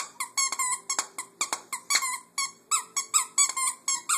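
Plush raccoon squeaky toy squeaked over and over as a dog chews on it: rapid short squeaks, about four or five a second, each falling slightly in pitch.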